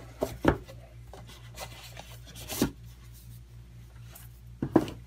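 Cardboard packaging being handled: a box sliding and rubbing, with three short scrapes and knocks, about half a second in, halfway through and near the end.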